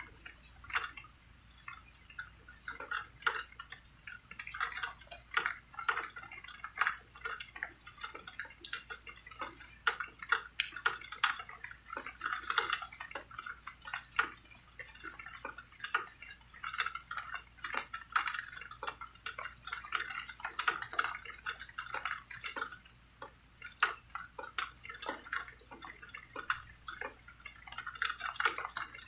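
Rain falling as many irregular drips and taps, several a second and uneven in loudness, with no thunder.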